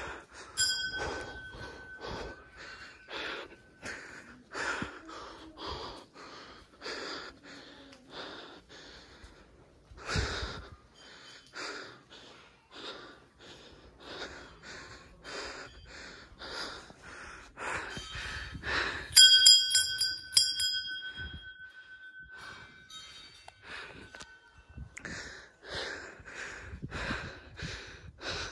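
Heavy, rapid breathing, about two breaths a second, from a trekker out of breath after a steep climb. A metal bell rings twice over it, briefly just after the start and louder about two-thirds through, its high tone dying away over a few seconds.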